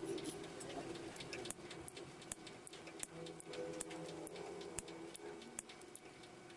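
Faint, irregular sharp clicks and pops as a soldering iron heats the solder joints of a through-hole transistor on a circuit board: flux crackling as the solder melts for desoldering. A low steady hum runs underneath.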